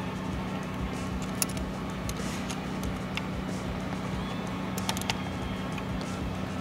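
A steady low hum from a running engine or machine, with a few light clicks as bolts on a blow-off valve adapter are worked by hand, once about a second in and twice about five seconds in.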